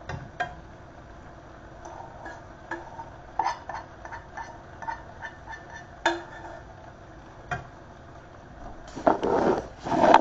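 Scattered clinks and knocks of a pot and metal utensils at the stove, a few a second. Near the end comes a louder rubbing and rustling as the camera is handled and moved.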